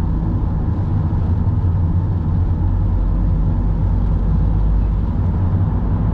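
Steady low rumble of a car's engine and tyres on the road, heard from inside the cabin while driving at speed.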